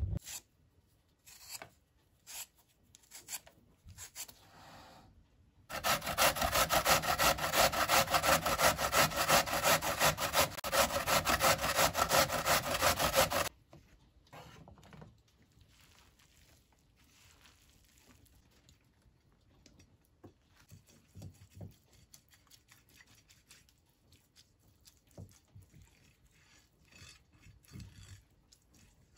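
Raw potatoes being grated on a coarse grater: a run of rapid, even rasping strokes for about eight seconds, starting about six seconds in. Before it, a few knocks of whole potatoes set down on a wooden cutting board, and after it only faint scrapes and taps.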